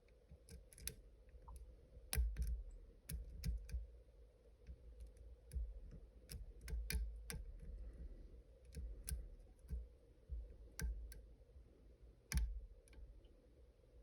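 Pick and tension wrench working a Robur dimple safe deposit lock: irregular small clicks and taps, a few with a dull knock, as a barrel pin is worked past its last rib under light tension.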